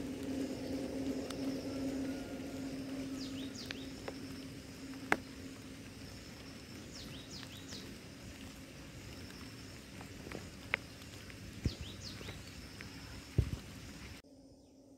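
Outdoor garden ambience: a steady high pulsing insect trill over a low steady hum, with a few groups of quick high falling chirps and several sharp clicks. The sound drops off abruptly near the end.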